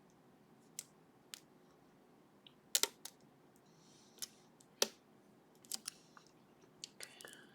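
Sharp, irregular metallic clicks of a lock pick and tension wrench working inside a sleeved Ruko lock with barrel drivers, about a dozen in all, the loudest about three and five seconds in, with a brief faint scrape between them. Lots of clicks are typical of barrel drivers moving against the milling as they are picked.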